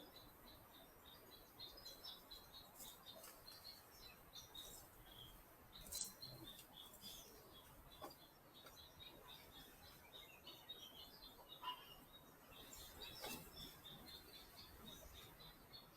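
Faint birdsong: many short, high chirps repeating throughout. A few sharp clicks come through, the loudest about six seconds in and again near twelve seconds.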